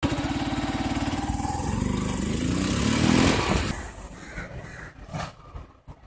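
Honda CB Unicorn 160's single-cylinder engine running with its air filter removed as the motorcycle rides past, the pitch rising as it accelerates. It is loudest about three seconds in, then fades away quickly.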